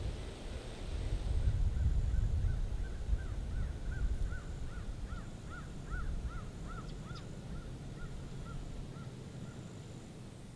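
A bird calling a long run of short, evenly repeated notes, about three a second, growing louder toward the middle and then fading away. A low rumbling noise runs underneath, strongest in the first few seconds.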